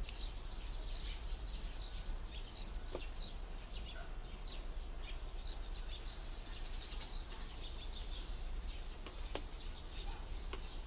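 Quiet outdoor background: a steady low hum with faint, scattered bird chirps and a few soft clicks, most of them near the end.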